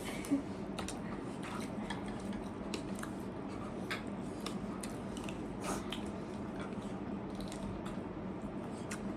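Faint eating sounds: wet chewing of spicy instant noodles and snacks, with scattered light clicks of utensils against plates, over a steady low hum.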